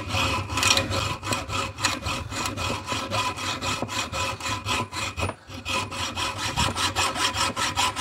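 Hacksaw cutting through the threaded steel shank of a sway bar link held in a vise, in quick, even back-and-forth strokes, with a brief break a little after five seconds in.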